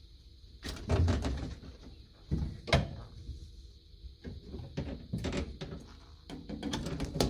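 A series of knocks and clacks from dust-extraction hose fittings being handled and snapped together, with one sharp clack about a third of the way in.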